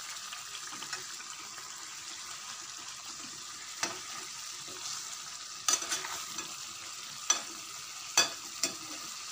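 Stuffed brinjals frying in masala in a steel kadhai, sizzling steadily as the water has cooked off and the oil separates. A steel spatula scrapes and knocks against the pan several times, mostly in the second half.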